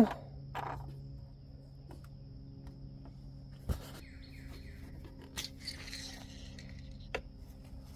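Faint outdoor background of birds chirping and insects, with a sharp click a little before halfway. Past halfway comes a brief scraping rustle as the engine oil dipstick is slid out of its tube.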